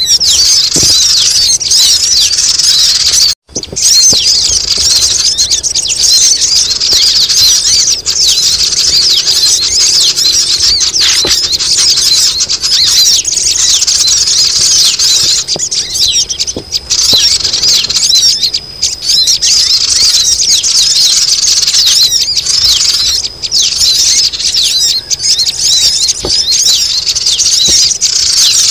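Dense, loud, continuous high-pitched chattering of many sogon birds, a noisy lure call (suara pikat) played to draw wild sogon down. The calls break off for a moment about three and a half seconds in.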